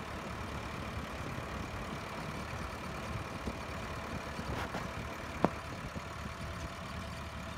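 Mahindra Arjun tractor's diesel engine running steadily as it drives along at road speed. A single short sharp click about five and a half seconds in.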